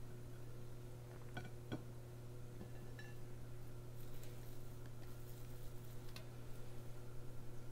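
Steady low kitchen hum with a few faint clicks and light taps as balls of sticky balushahi dough are shaped by hand and set on an oiled plate; the two sharpest clicks come about a second and a half in.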